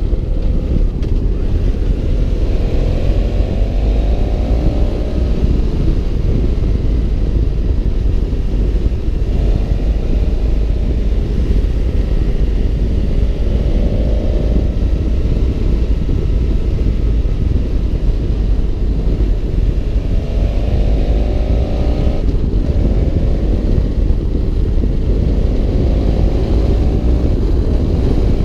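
BMW F650 GS Twin's parallel-twin engine running under way, buried in heavy wind rumble on the microphone; the engine note climbs in pitch several times as the bike accelerates.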